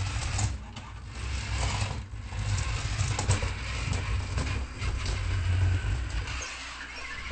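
Voice-controlled R2-D2 toy robot's electric drive motors and gears whirring steadily as it turns and rolls across the floor, with a few clicks. The motor noise stops about six and a half seconds in.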